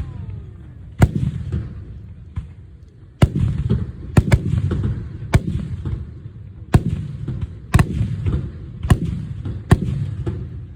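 Aerial firework shells bursting: about nine sharp bangs at irregular intervals, each trailing off in a low rolling rumble that echoes.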